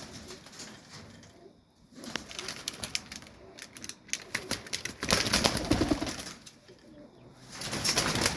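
Domestic highflyer pigeons in a loft cooing, with scattered clicks and rustling and louder bursts of wing-flapping and scuffling about five seconds in and again near the end.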